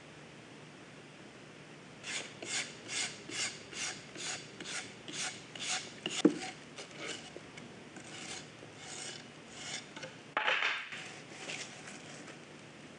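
Steel brush scrubbing the surface of a freshly cast, still-soft concrete nut-sheller rotor in quick back-and-forth strokes, about two and a half a second, roughening it so the peanuts will grip and spin instead of sliding. A single knock comes near the middle, and a louder, longer scrape follows later.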